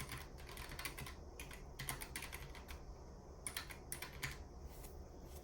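Keys of a Keychron K1 low-profile mechanical keyboard with red linear switches being typed on: irregular sharp key clicks, often in quick runs of two or three, a few each second.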